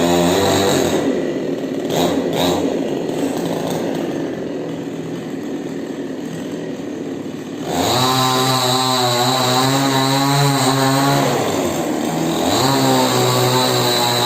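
Chainsaw running at high revs, then cutting into wood for about six seconds, its engine note lost under the load. The saw then revs freely again, its pitch dipping and climbing back near the end.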